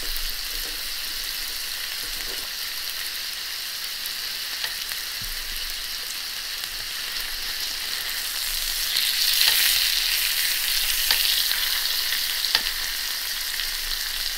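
Ribeye steaks sizzling on a hot, smoking griddle: a steady frying hiss that gets louder about nine seconds in as the meat is moved around with metal tongs, with a few sharp clicks.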